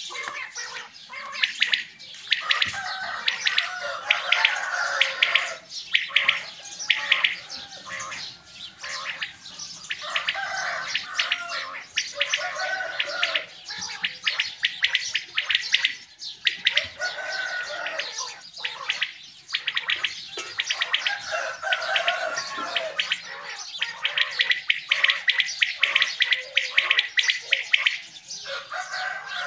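Several caged quails calling together without pause: a dense chatter of rapid chirps, with short warbling phrases repeated every second or two.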